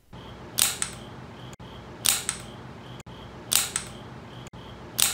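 Wooden single-shot rubber band pistol firing: its slide trigger releases the band with a sharp snap, four shots about a second and a half apart, each followed by a lighter click.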